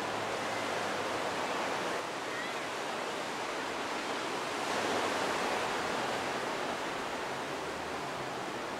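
Ocean surf washing steadily against the shore, an even rush of water that swells a little midway.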